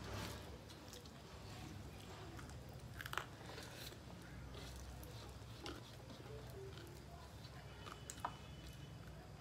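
Quiet eating by hand: chewing, and fingers mixing rice and curry on metal plates. A few soft clicks and taps stand out, the sharpest about three seconds in and near the end, over a low steady hum.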